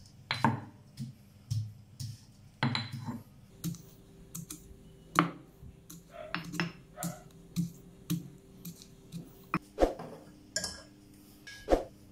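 Stone pestle pounding garlic in a granite mortar: irregular sharp knocks, about one or two a second. Near the end, metal utensils clink as a ladle is taken from a hanging rack.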